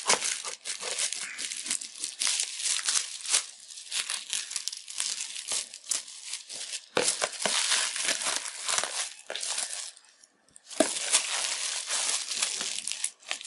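Black plastic shipping bag crinkling and tearing as it is cut with scissors and pulled open around a boxed pair of headphones, in a dense run of sharp crackles that stops briefly about ten seconds in.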